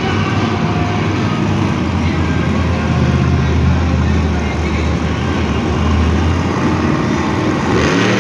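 Black Pearl monster truck's engine running loud and steady as it drives the dirt arena floor, revving up with a rising pitch near the end.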